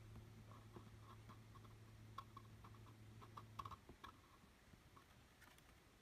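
Near silence: a few faint clicks and taps from a plastic Linksys Velop router node being handled, over a faint low hum that stops a little past halfway.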